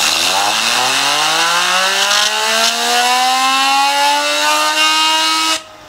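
Small handheld pen torch hissing steadily, its flame aimed at a spinning fidget spinner, with a whirring tone from the spinner that climbs steadily in pitch. The torch hiss cuts off suddenly near the end, leaving the spinner's fainter whir, now slowly falling.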